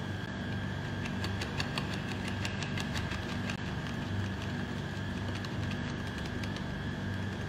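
Small wire whisk beating mango pulp into a thin milk sauce in a plastic tub, its tines ticking quickly against the tub, thickest in the first few seconds. Under it runs a steady low machine hum.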